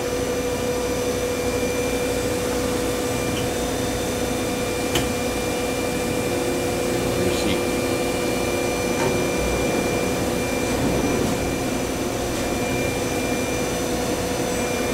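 Steady hum and whine of CNC machining centers and shop machinery running, several steady tones over a constant noise, with a few faint clicks.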